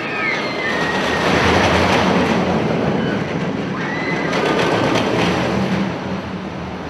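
A train running on steel rails: a steady rumble with clattering and a few brief high wheel squeals.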